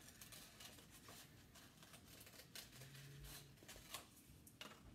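Scissors cutting through folded construction paper: a series of faint, irregular snips with light paper rustle.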